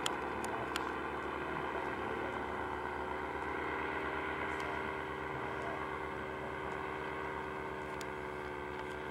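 Paramotor's engine and propeller droning steadily as the powered paraglider flies overhead, its pitch nearly constant, with a few faint ticks near the start.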